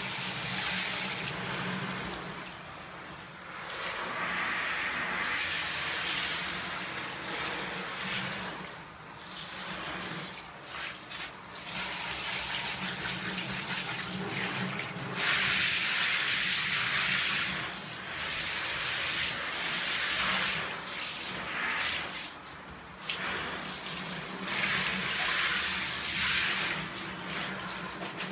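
Handheld shower head spraying water over a bath's taps and tub, the water drumming on the surfaces and running down the drain. The hiss swells and fades as the spray is moved around, with a faint low hum underneath.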